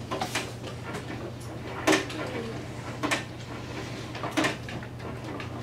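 Scattered sharp plastic clicks and knocks, one every second or so, as a large plastic geared teaching clock is handled and its hands are turned, over a steady low room hum.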